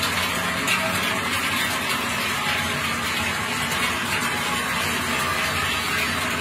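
Many large cowbells on a passing herd of cows clanging together in a dense, steady metallic wash.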